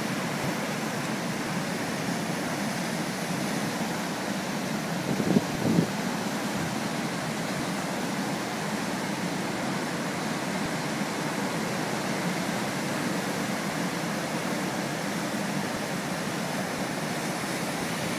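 Rough surf: a steady roar of breaking waves and churning whitewater, swelling briefly louder about five seconds in.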